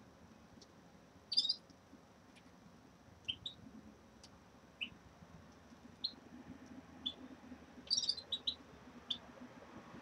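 Small caged finches chirping: short, high call notes scattered throughout, with two louder clusters of several quick notes about a second and a half in and near eight seconds in.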